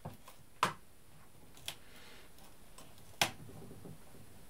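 Metal claw weights being handled and clipped onto the knitted fabric hanging from a knitting machine's needle bed: a few sharp clicks, two of them loud, under a second in and just past three seconds.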